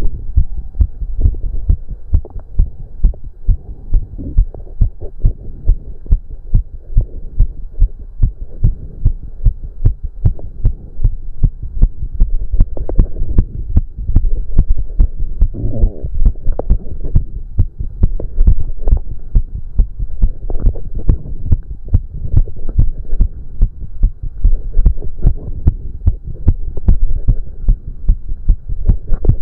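A man's heartbeat, fast and pounding in a quick, even rhythm, heard close against the chest: a heart racing from the exertion of a cardio workout. Heavy breathing comes and goes beneath the beats.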